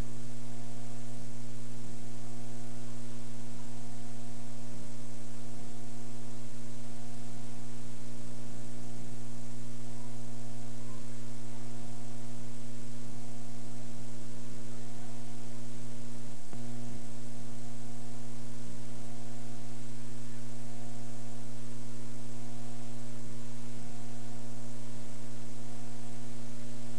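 Steady electrical mains hum, an unchanging low buzz with its overtones and nothing else: the footage has no sound of its own, so only the hum of the playback and transfer is heard.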